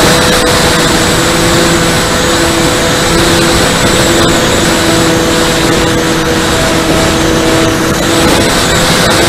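Electric motors and propellers of an E-flite Convergence VTOL model plane whining steadily in forward flight, heard from a camera on the airframe. A second, lower tone comes and goes over heavy wind rush on the microphone.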